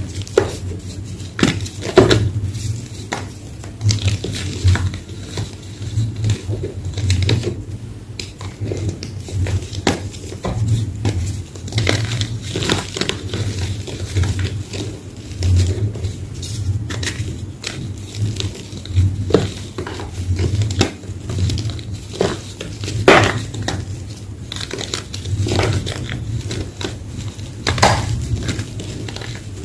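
Homemade gym chalk block being crushed: a continuous run of irregular crunches and crackles, with a few louder sharp cracks now and then.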